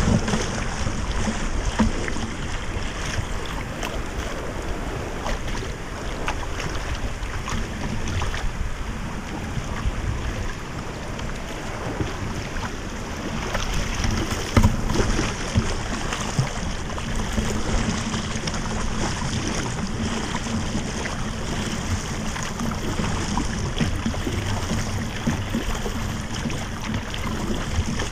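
River water rushing through riffles and splashing against a kayak's bow close to the microphone, a steady rush with many small splashes.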